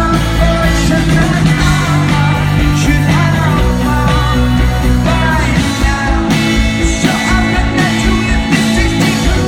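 Live rock band playing, with a lead singer's voice over electric guitars, bass and drums.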